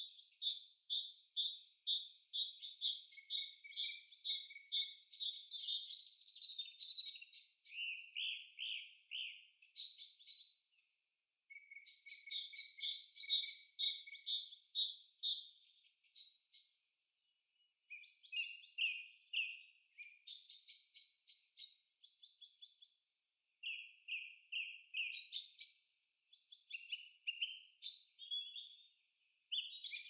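Songbirds singing: runs of short, quickly repeated high chirps and trills, phrase after phrase, broken by a few brief silences.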